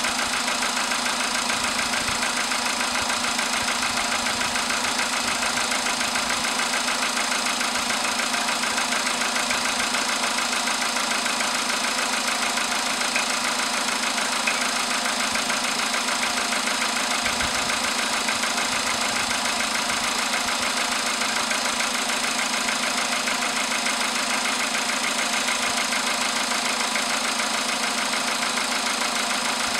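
Volkswagen Polo Sedan's 1.6-litre CFNA four-cylinder petrol engine idling steadily with a persistent knock, after a cold morning start at about 10 °C.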